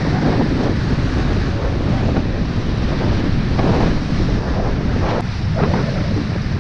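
Wind buffeting the microphone over the rush of the bow wave and spray along the hull of a Hallberg-Rassy 44 sailing yacht heeled under sail, with a few louder splashes in the second half.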